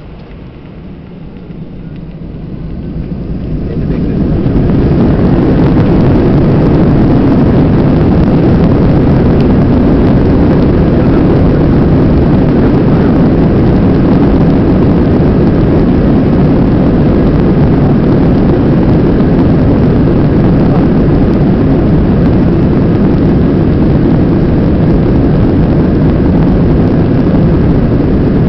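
Airbus A321's jet engines going up to takeoff thrust, heard from inside the cabin: a low rushing noise that swells over about three seconds, starting a couple of seconds in, then holds loud and steady.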